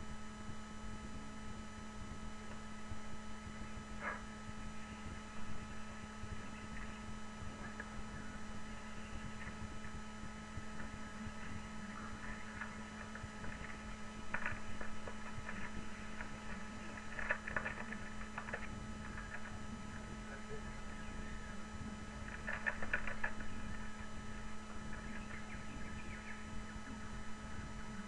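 Steady electrical hum with faint, brief crackles now and then, clustered most around two thirds of the way through.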